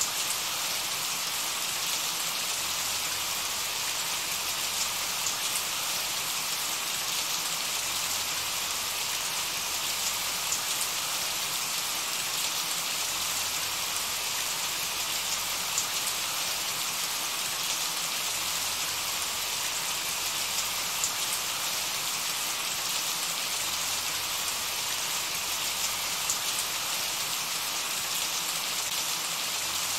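Steady rain falling: an even, continuous hiss with scattered sharper raindrop ticks.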